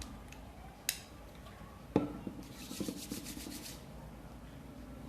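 Clicks from handling a hair serum bottle, the sharpest about two seconds in, followed by about a second of quick rubbing.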